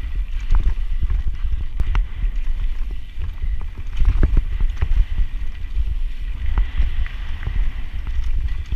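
Mountain bike descending a loose dirt trail at speed: wind buffeting the microphone in a heavy low rumble, with frequent clicks and knocks from the bike rattling over roots and rough ground.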